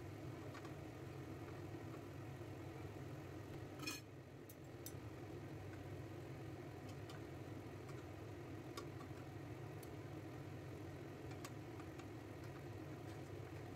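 Steady low hum under light metal taps of a fork and spoon against a frying pan as pastries are turned in hot oil, with one louder clink about four seconds in.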